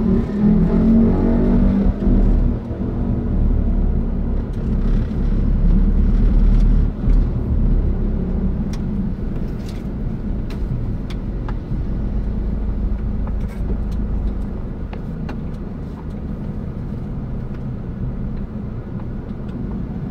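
Car's engine and tyre noise heard from inside the cabin while driving slowly, a steady low rumble, with a few faint clicks in the middle.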